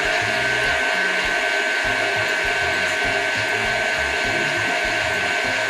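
Electric kitchen mixer running at a steady speed, a constant whirring with a steady high whine, beating melted butter into the egg batter.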